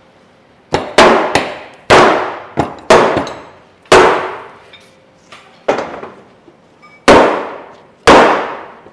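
Loud metal-on-metal clangs, about ten in a row at irregular intervals of roughly a second, each ringing out briefly before fading; a few are fainter than the rest.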